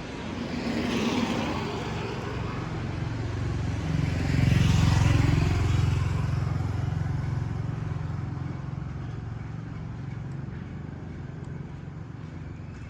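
Motor vehicles passing on a street: a smaller swell about a second in, then a louder pass around five seconds in that slowly fades away.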